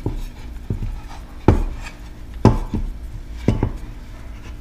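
Johnson outboard recoil starter being twisted by hand to wind up its rewind spring: a handful of sharp, irregular knocks and clicks as the pulley turns in its housing.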